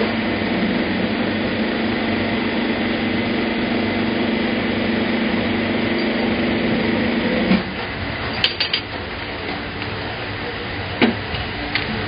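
Hose crimping machine running with a steady hum for about seven and a half seconds, then dropping to a lower level, followed by a few sharp metallic clicks.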